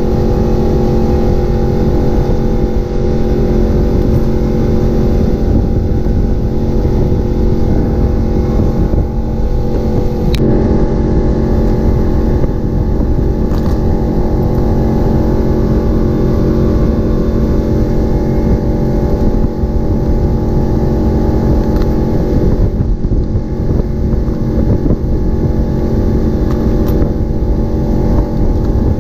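Motorboat engine running steadily at speed, a constant drone over low rumble from the hull and water.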